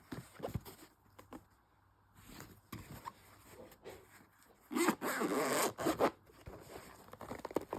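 Zipper on a GoPro carry case being pulled open, one long pull about five seconds in. Light handling clicks and rustles come before it.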